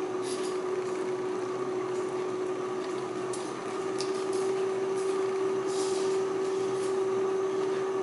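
A person chewing a mouthful of sautéed sweet potato leaves, with a few soft mouth smacks and clicks, over a steady hum.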